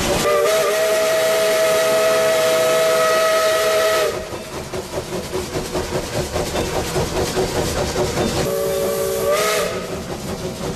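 Steam locomotive's whistle blown for a road crossing: one long blast of several notes at once lasting about four seconds, then a short blast near the end. In between, the locomotive is heard running.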